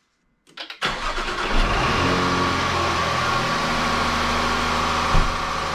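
Supercharged 3.0-litre V6 of a 2017 Jaguar XF, breathing through a newly fitted open cone air filter, starting up about a second in and settling into a steady idle with a steady high whine over it. A short thump comes near the end.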